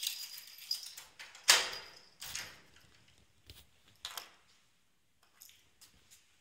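A key ring with charms jingling as a key turns in a door's deadbolt, then a sharp clack about a second and a half in as the lock and latch release, followed by a few lighter clicks as the door is opened.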